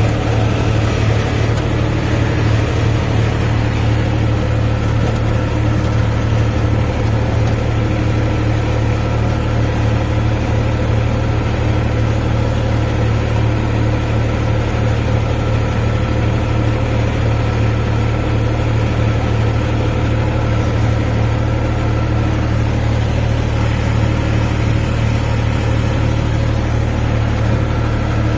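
Farm tractor's diesel engine running at a steady speed, a constant low drone with no change in pitch.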